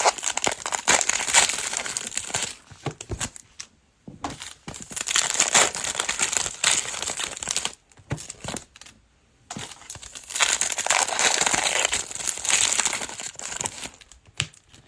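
Plastic wrapping of trading-card packs being crinkled and torn open, in three long spells with short pauses between.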